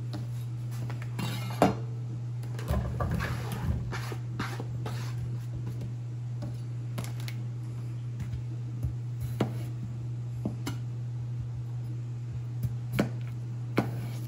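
Diced raw potato knocking and clattering as it is swept off a plastic cutting board into a plastic colander, a few seconds in. It is followed by scattered clicks of a chef's knife on the board, with two sharper knocks near the end as a potato is sliced, over a steady low hum.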